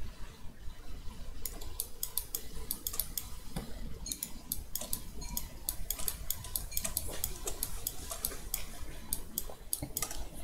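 Clicking of a computer mouse and keyboard: many short, sharp clicks at an irregular pace, starting about a second and a half in, over a low steady hum.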